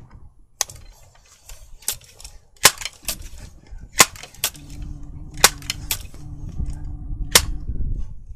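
Sharp clicks of a Benjamin .22 multi-pump pellet rifle being cocked: the bolt and pump lever worked by hand, about ten clicks spread unevenly, some in quick pairs.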